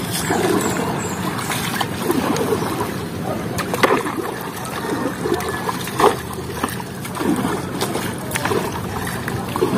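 Wooden paddle strokes splashing in lake water as a bamboo raft is paddled along, with water lapping against the raft. A couple of sharper hits stand out, about four and six seconds in.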